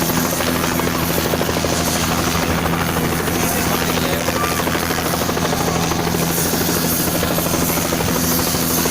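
Helicopter running steadily: a continuous turbine whine with a fast, even rotor chop.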